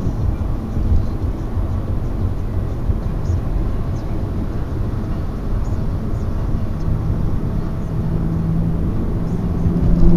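Steady road and engine rumble of a car driving on a freeway. About seven seconds in, a steady low hum joins it and holds.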